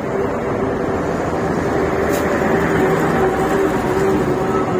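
Steady rumble and hum of idling vehicle engines, with one short click about two seconds in.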